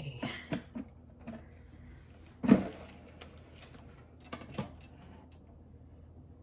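Kitchen handling sounds: a few light clicks and knocks, one sharp knock about two and a half seconds in that is the loudest, and two more knocks a little before five seconds.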